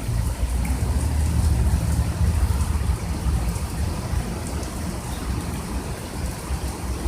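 Heavy rain pouring steadily, with a low rumble that swells over the first few seconds and then eases.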